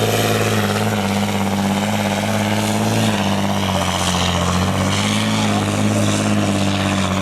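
Heavy truck engine running steadily at high revs, as when pulling the sled in a truck-pulling run; the pitch sags slightly around the middle and then recovers.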